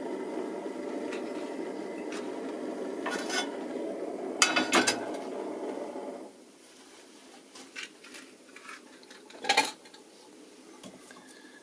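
Steady rushing hum of a lit gas stove burner. A metal frying pan clatters onto the burner grate about four and a half seconds in. The hum then cuts off suddenly, leaving light knocks and a single clink of the pan near the end.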